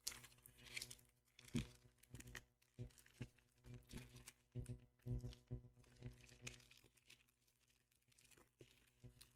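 Soft crinkling and rustling of a foil trading-card booster pack being torn open and handled. A string of short crinkles runs through most of the stretch and dies away near the end.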